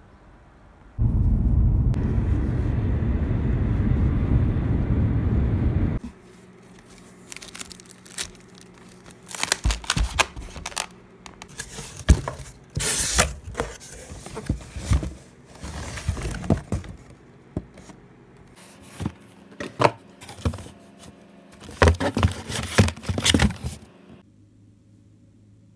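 A loud low rush of wind on the microphone for about five seconds, cutting off abruptly. Then a cardboard delivery box is opened and its packaged groceries and cans handled: irregular crinkling, tearing and light knocks.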